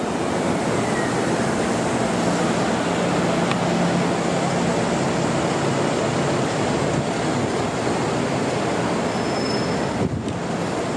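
Steady loud rumbling roar, with a low drone underneath from about two seconds in that fades out by about seven seconds.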